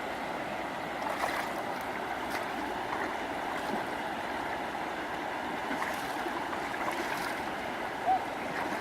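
Steady sloshing and trickling of shallow water, with a few small splashes and clicks. A short high squeak about eight seconds in.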